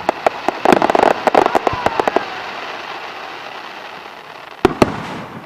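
Aerial fireworks going off: a rapid run of sharp crackling pops in the first two seconds, trailing off into a fading wash of sound, then two loud bangs in quick succession near the end.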